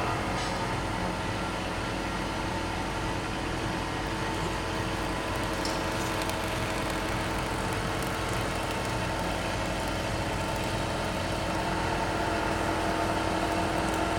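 CNC wood milling and turning lathe running: a steady mechanical hum with several held tones.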